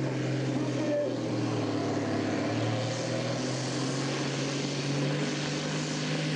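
Pulling tractor's engine under full load dragging the weight sled, a steady loud drone whose pitch dips slightly about two seconds in and then holds.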